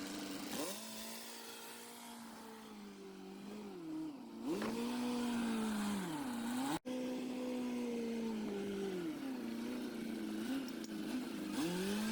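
M816 military wrecker truck engine working under load, its pitch sagging and rising again several times as the engine is loaded and revved. There is a brief break in the sound about halfway through.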